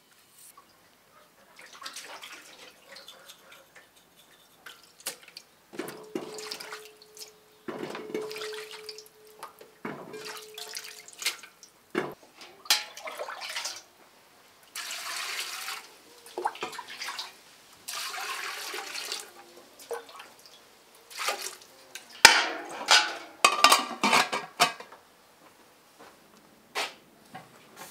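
Water splashing and sloshing in a metal basin as potatoes are rubbed and washed by hand, then water poured from a bowl into a large metal pot, with a few sharp clanks of metal pots and bowls.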